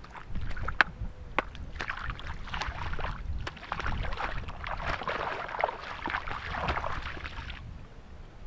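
Someone wading through shallow sea water: splashing and sloshing that starts about two seconds in and stops shortly before the end, after a few sharp clicks. A low rumble runs underneath.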